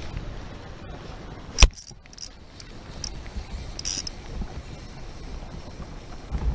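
A light spinning reel and rod being handled: one sharp click about a second and a half in, then a scatter of light metallic ticks, over low wind and water noise on the microphone.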